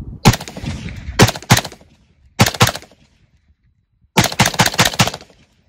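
AR-15-style rifle firing: a few separate shots in the first half, then a quick string of several shots about four seconds in.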